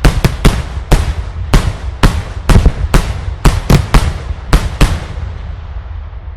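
Daylight fireworks display: aerial shells exploding in a rapid, irregular string of loud bangs, about fifteen in five seconds. The bangs stop about five seconds in, leaving a fading rumble of echo.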